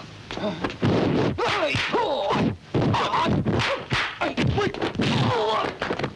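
Kung fu fight sound effects: a rapid run of punch and block impacts mixed with the fighters' short shouts and grunts.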